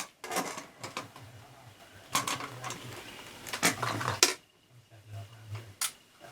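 Handling clatter from a small plastic camcorder and its parts: a series of sharp clicks and light knocks several seconds apart.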